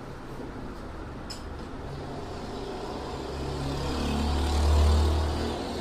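A low vehicle rumble that builds to a peak about five seconds in and then fades, as a motor vehicle passes. There is a brief click about a second in.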